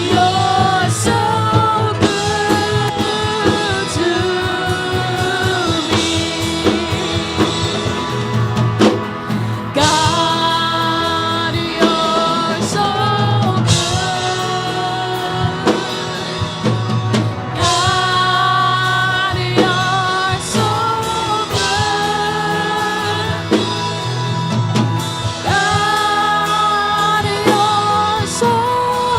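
Live worship song: singing over a band with drum kit and guitar, in sustained sung phrases with a steady beat.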